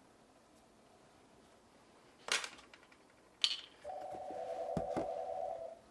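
Large plastic spice container being handled: a short rustle, then a sharp snap, like its lid. Then a steady two-note electronic-sounding buzz holds for about two seconds, with a couple of light knocks during it, before cutting off.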